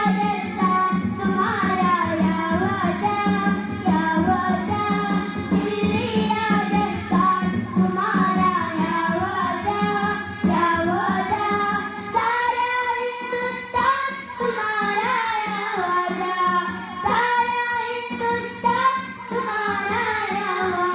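Children singing a qawwali together through stage microphones, the melody bending between held notes.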